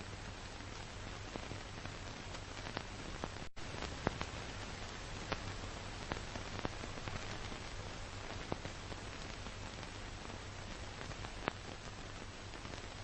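Steady hiss and crackle of an old film soundtrack, with scattered clicks and a low hum. It cuts out for an instant about three and a half seconds in.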